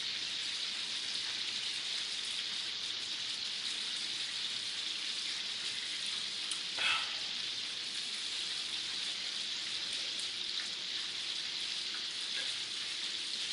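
Chicken pieces frying in hot oil in a pan, a steady sizzle. A brief short sound about seven seconds in.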